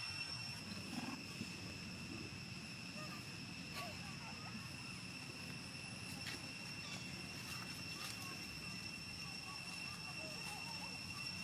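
Quiet outdoor ambience: a steady, high-pitched insect drone, with scattered faint clicks and rustles.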